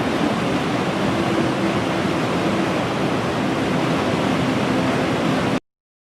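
Steady rushing of a waterfall, cutting off suddenly near the end.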